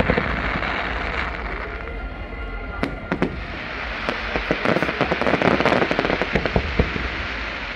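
Fireworks going off: a dense fizzing haze, a few sharp bangs about three seconds in, then a run of quick crackles as gold shells burst overhead.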